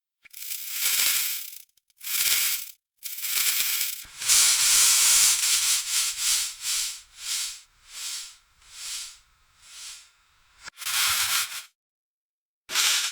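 Lead apron rustling and crinkling in separate handling bursts. About four seconds in comes a longer, loud stretch of rustling, followed by shorter rustles about twice a second that fade away, then two more short bursts near the end.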